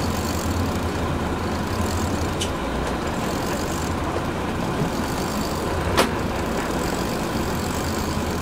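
Boat engine running slowly for trolling, a steady low rumble, with a single sharp click about six seconds in.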